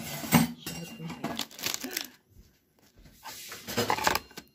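Table knife sawing through a bagel-wrapped hot dog on a plate, the blade scraping and clicking against the plate in two spells, the second loudest just before the end.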